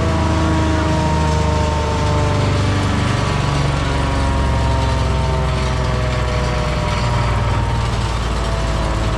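Vermeer 1600A woodchipper's engine running steadily at high speed, its pitch sagging slowly. It has run up toward wide-open throttle on its own, the sign of a worn, slipping governor belt.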